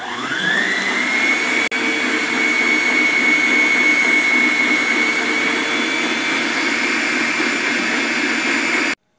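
Electric stand mixer running, its wire whisk beating cake batter in the bowl: the motor's whine rises as it speeds up in the first half second, then holds one steady pitch over a low hum. It stops abruptly near the end.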